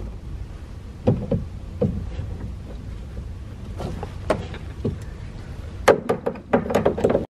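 Small hand tool clicking and knocking on the side mirror's mounting nuts inside a car door as the nuts are run on and tightened, with a quick run of clicks near the end.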